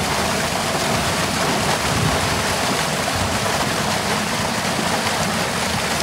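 Muddy surface water gushing steadily off the end of a drainage trench and splashing down a bank into a flooded pit: a small man-made waterfall.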